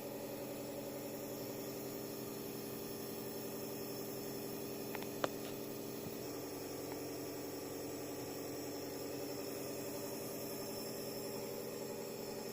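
Nebulizer compressor running with a steady mechanical hum for inhalation therapy. There is a single sharp click about five seconds in.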